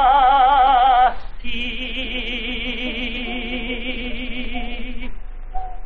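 A male singer holds the last note of a ballad with a wide vibrato, and it stops about a second in. The dance band then holds a closing chord, with a quavering high part on top, that ends about five seconds in.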